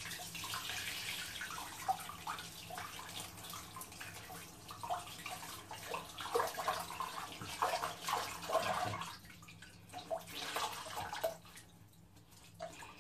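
Water running from a bathroom tap with irregular splashing as hands move in it; the running water stops near the end.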